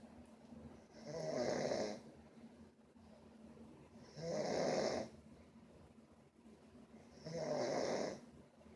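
A sleeping person snoring: three snores about three seconds apart, each lasting about a second, with quieter gaps between.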